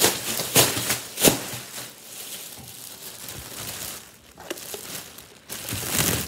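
Plastic wrapping crinkling and rustling as it is handled, loudest in the first second or so and again near the end.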